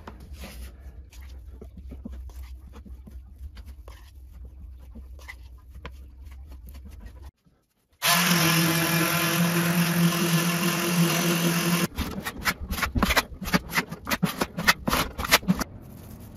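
Putty knife scraping and smoothing joint compound over a drywall patch in short strokes. After a brief silence about seven seconds in, a loud steady hiss with a low hum lasts about four seconds. Then a paint roller crackles in quick irregular strokes across the drywall.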